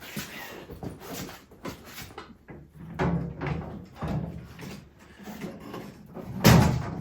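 Metal clunks and knocks of equipment being handled and set onto a steel welding cart, irregular, with a heavy bang near the end.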